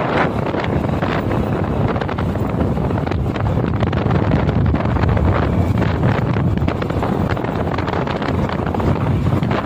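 Wind buffeting the microphone: a continuous rumbling noise that surges and eases without pause.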